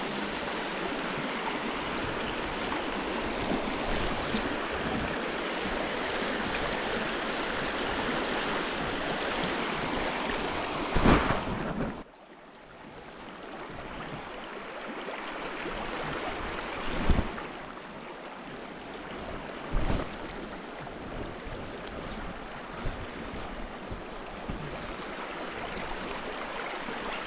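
River water flowing, a steady rushing noise that drops suddenly about twelve seconds in and then slowly builds again. A few short thumps stand out over it, the loudest just before the drop.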